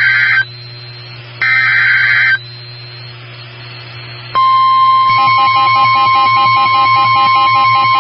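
NOAA Weather Radio alert tones: the last two bursts of the SAME digital header, each a harsh rasping data screech about a second long, a second apart; then, about four seconds in, the loud steady warning alarm tone starts, signalling that a warning message follows.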